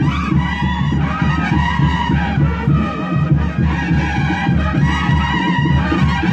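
A live band playing traditional Andean festival dance music with a steady beat and sustained melodic lines, likely including brass.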